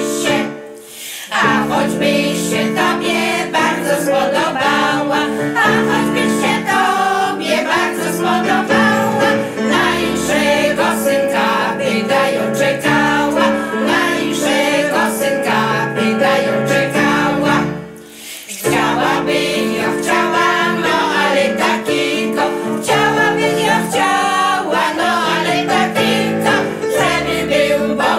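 A regional folk ensemble of women singing a Silesian song together, with instrumental accompaniment holding steady notes underneath. The music drops out briefly about a second in and again about 18 seconds in.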